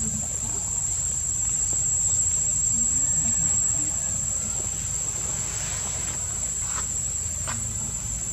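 Insects buzzing steadily at a high, unchanging pitch over a low rumble, with two brief clicks near the end.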